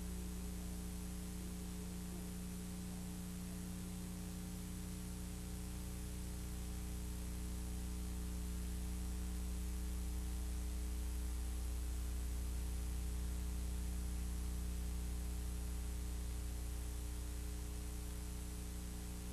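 Steady electrical mains hum with a few higher overtones and a faint even hiss, carried on the VHS tape transfer, with no other sound.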